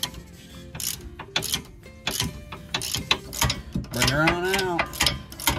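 Socket ratchet clicking in short runs as the 18 mm rear brake caliper bracket bolts are worked loose. About four seconds in, a brief tone rises and then falls in pitch.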